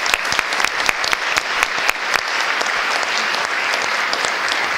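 Audience applauding: many people clapping together in a hall, with sharp individual claps standing out over the first couple of seconds before blending into a steady wash of clapping.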